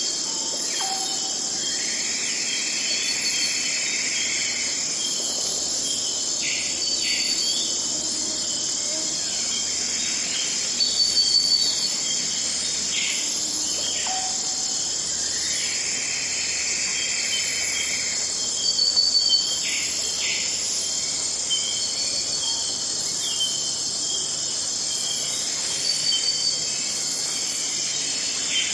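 Rainforest ambience: a steady, dense chorus of high-pitched insects, with birds calling now and then and a few short, louder calls standing out.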